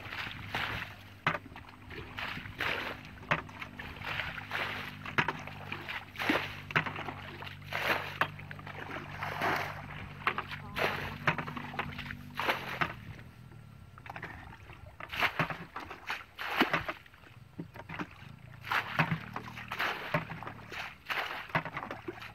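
Shallow water sloshing and splashing in a muddy rice-paddy channel, in a quick, uneven string of splashes. Under it runs a low steady hum that drops away about halfway through.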